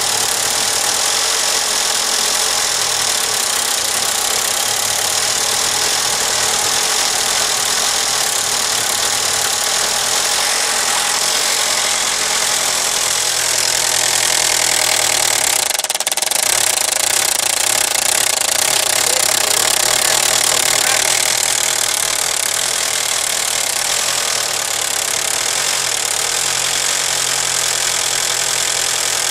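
VW/Audi 1.8-litre turbo four-cylinder engine running steadily with the valve cover off and the camshafts and chain exposed. It is running with little or no oil pressure, which the owner puts down to a bad oil pump or a sludged-up bottom end.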